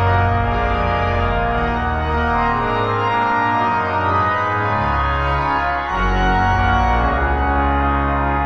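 Organ music playing sustained chords over a deep bass line that changes notes every second or so. The bass drops out briefly near the middle and comes back.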